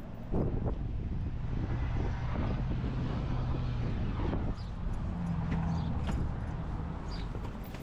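An engine running steadily, with a few sharp knocks and clicks.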